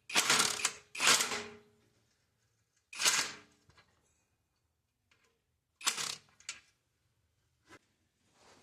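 A run of metallic clanks and clatter, like metal tools or parts being handled and set down: two loud ones in the first two seconds with a short ring after them, then smaller ones about three and six seconds in and a faint knock near the end.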